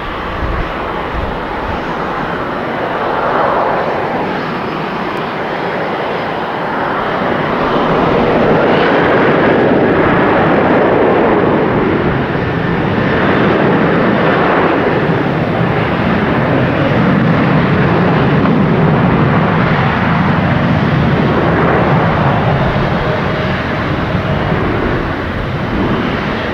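Boeing 777F freighter's GE90 turbofan engines running at taxi thrust as the jet rolls along the taxiway: a steady broad jet roar whose tone slowly sweeps up and down, growing louder about a third of the way in.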